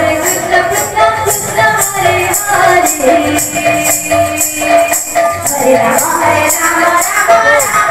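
Odia sankirtan devotional music: singing over a drum and small metal hand cymbals clashing in a steady beat.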